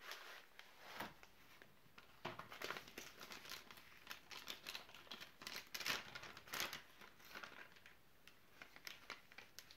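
Crinkling and rustling of an MRE cheese bread pouch being slid out of its paper sleeve and torn open, in irregular crackles that thin out near the end.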